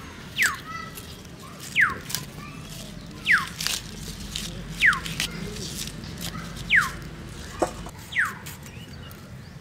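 A bird repeatedly giving a sharp, falling whistled note, about once every one and a half seconds, with a few crisp clicks of leafy stems being cut on a blade in between.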